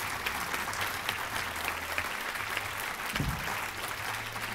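Audience applauding steadily, with one brief low thump about three seconds in.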